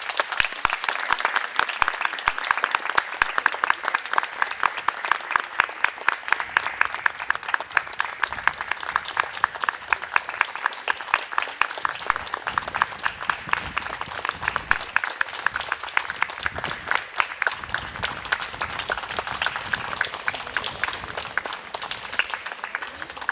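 Audience applauding with dense, steady clapping for performers taking their bow, easing off slightly near the end.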